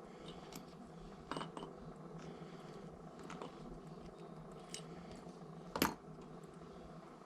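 Scattered light clicks and taps of small metal hardware and tools being handled, the sharpest about six seconds in.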